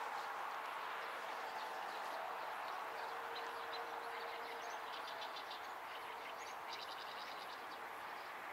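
Steady outdoor background noise with a faint hum, and small birds chirping in quick runs from about three seconds in.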